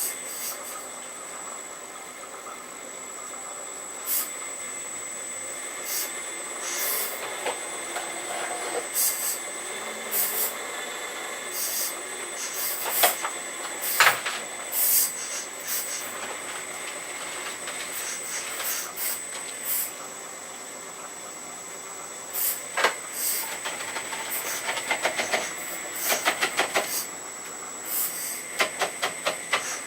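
Hydraulic pump of an RC Earth Digger 4200XL excavator running with a steady high whine, while the arm and bucket work soil. Sharp clicks and quick rattling clatters come now and then, in rapid runs near the end.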